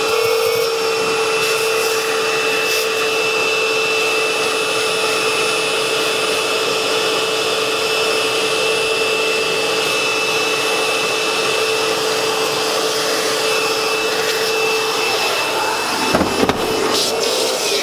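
Hose vacuum cleaner running with a steady whine as it sucks loose toner out of the inside of a Kyocera 6030 colour printer, around the drum, after the old image transfer belt was taken out. Near the end a few knocks as the hose is pulled out of the printer.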